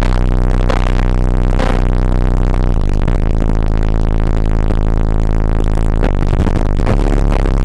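Loud, bass-heavy music played through a car stereo's eight Sundown Audio NSV5 15-inch subwoofers in a fourth-order bandpass enclosure, with deep sustained bass notes dominating.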